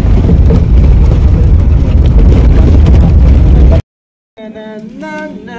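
Loud, steady rumble of a moving vehicle on the road, heaviest in the low end. It cuts off abruptly about four seconds in.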